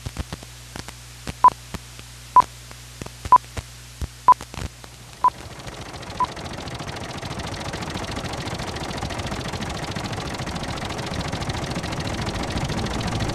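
Film-leader countdown: six short, high single-pitch beeps about a second apart, the last one fainter, over a low hum and scattered clicks and crackle of an old film soundtrack. From about five seconds in, a broad rumbling noise fades in and grows steadily louder.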